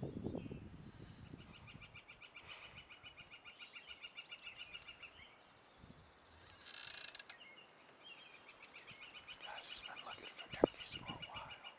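A songbird singing a long, fast, even trill on one high pitch, twice, with a short burst of another high call between. Low rustling at the start and one sharp click near the end.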